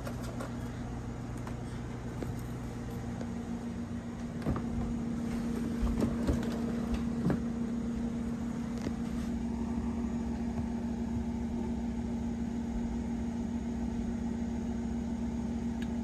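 Steady low machine hum that grows louder about four seconds in, with a few sharp knocks between about four and seven seconds.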